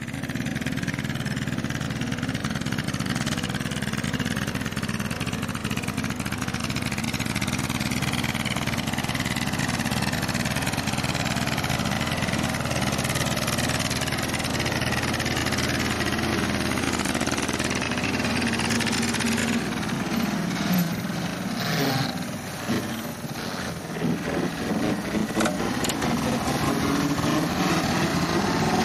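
Tractor's diesel engine running under load while powering a tractor-mounted single-rotor rotary slasher cutting grass and weeds. The sound is steady at first, then turns uneven for the last third or so, with dips and surges.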